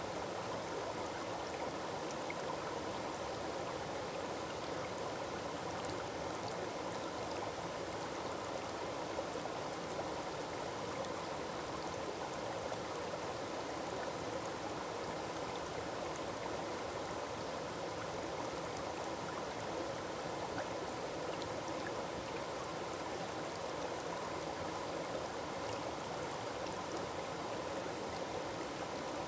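Forest waterfall: water falling and rushing in a steady, unbroken wash of sound.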